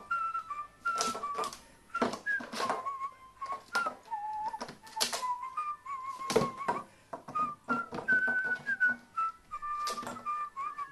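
A whistled background-music melody, broken by irregular crinkles and knocks as a carrion crow handles a plastic pouch with its beak on a wooden shelf. The sharpest knock comes a little past halfway.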